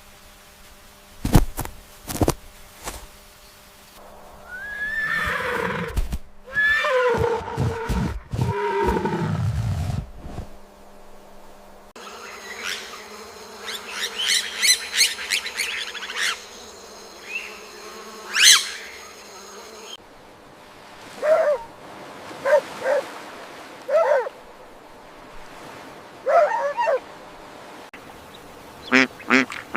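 A string of separate animal sound effects, one after another: a few sharp knocks, then calls that slide up and down in pitch, then a stretch of rapid clicking, then several short calls with pauses between.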